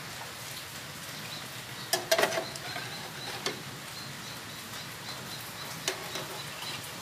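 Egg and bread frying in a grill pan with a steady sizzle, while a spatula scrapes and knocks against the pan a few times, about two seconds in, again a little later and near the end.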